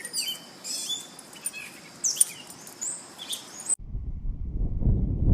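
Birds chirping, short high calls and sweeps over a faint hiss, cut off suddenly about four seconds in by a low rumbling noise.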